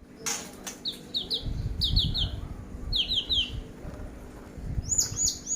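A songbird calling in quick runs of three short, high chirps, each sliding downward, repeated three times. Near the end come a few higher chirps. A low rumble sits underneath.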